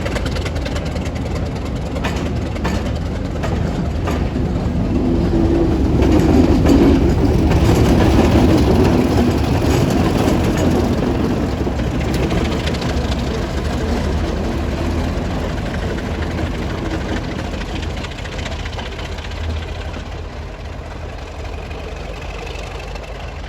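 Heritage diesel locomotive engine running, growing louder to a peak about a third of the way in and then slowly fading as it moves on.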